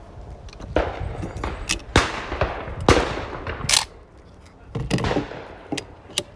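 Several 12-gauge shotgun shots, each a sharp crack with an echoing tail: two about a second apart near the middle, and another a couple of seconds later.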